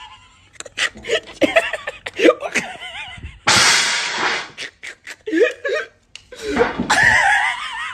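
Men laughing and shouting, with sharp slaps and smacks scattered through. A loud, harsh burst of noise lasting under a second comes about three and a half seconds in.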